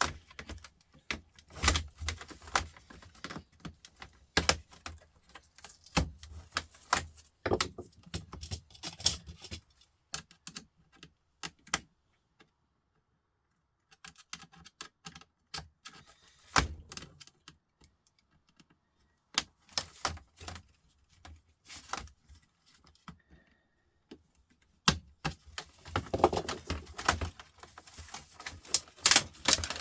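Hard plastic laptop casing parts being pried, snapped and handled, giving irregular clicks, cracks and clattering rattles. A few seconds of quiet come about twelve seconds in.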